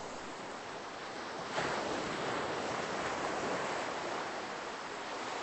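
Ocean surf washing on the beach, a steady hiss that swells suddenly about a second and a half in and then slowly eases.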